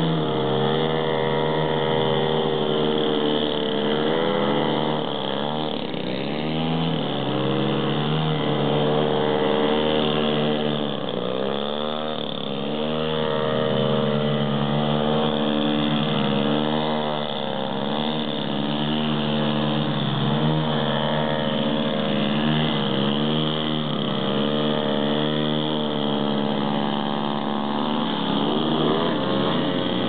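Engines of large-scale radio-controlled aerobatic airplanes running, several engine notes overlapping and rising and falling in pitch again and again as the throttle changes, one plane hovering nose-up on its propeller.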